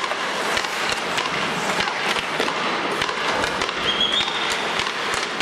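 Ice hockey in play: skate blades scraping and carving on the ice, with frequent sharp clicks of sticks and puck, echoing in a mostly empty arena. A brief high tone sounds about four seconds in.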